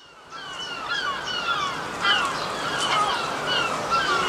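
Garden birds chirping: a dense chorus of short, falling notes overlapping one another, starting abruptly a moment in.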